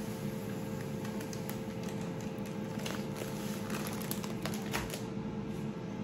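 Dry bulgur being poured from a plastic bag into a glass: the bag crinkles and the grains fall in, heard as scattered light ticks over a steady low hum.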